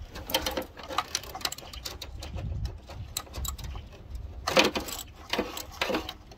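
Hands working among the spark plug leads on a Ford 2.3 V6 engine, giving irregular clicks, rattles and knocks as the leads are gripped and pulled. There are three louder knocks, about four and a half, five and a half and six seconds in.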